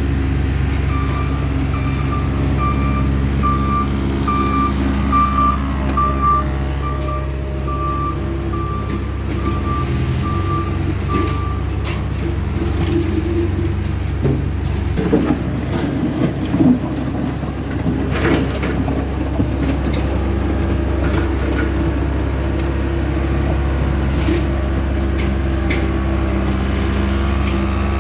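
CASE skid steer loader diesel engines running steadily, with a backup alarm beeping about twice a second for the first ten seconds or so. Clattering and scraping of gravel runs for a few seconds around the middle.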